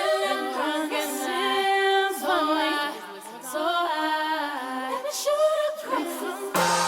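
Background music: a sung vocal line with little or no accompaniment. Instruments with a low bass come in near the end.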